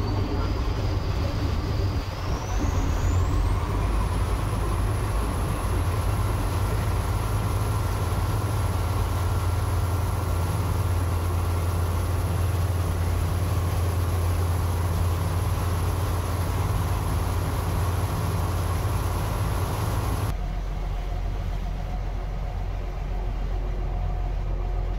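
A small boat's engine running under way, a strong low hum under the rush of water and spray along the hull. A high whine climbs over the first few seconds and then holds steady. About twenty seconds in, the sound changes abruptly to a quieter engine hum over calmer water.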